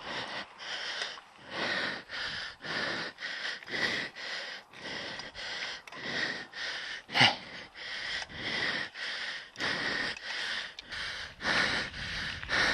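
Rapid, heavy breathing close to the microphone, about two to three breaths a second, from a cyclist pedalling hard. A single sharp knock about seven seconds in.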